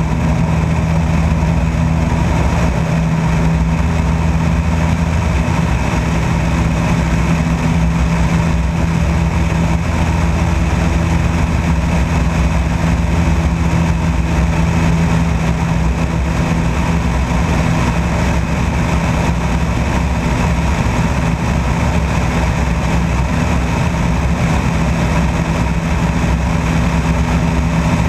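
Small propeller plane's engine running steadily at a constant pitch through the takeoff roll and climb-out.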